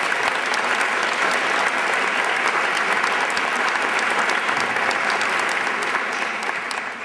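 An audience applauding, a dense, steady clapping that dies away at the end.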